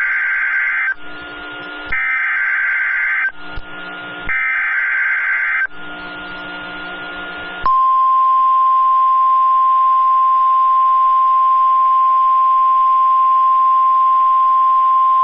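Emergency Alert System SAME header from NOAA Weather Radio: three harsh bursts of digital data tones, each about a second and a half long, with quieter receiver hiss between them. About halfway through, the steady single-pitch 1050 Hz warning alarm tone starts and holds, signalling that a warning message follows.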